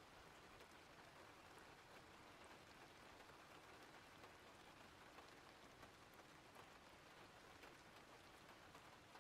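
Faint steady rain, an even hiss with scattered tiny drop ticks.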